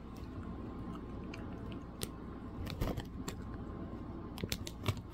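Chips being crunched and chewed: scattered crisp crunches, with louder clusters about three seconds in and again near the end.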